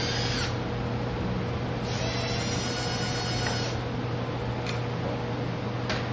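A small electric motor whirs in two short runs, briefly at the start and again for almost two seconds from about two seconds in, over a steady low hum, with a couple of light clicks near the end.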